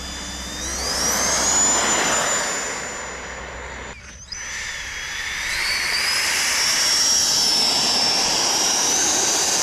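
Electric ducted fan of an RC jet dragster whining under throttle, the pitch rising over about a second and then holding high and steady over a rush of air. About four seconds in the sound breaks off briefly, and the fan whine comes back, rising again and holding.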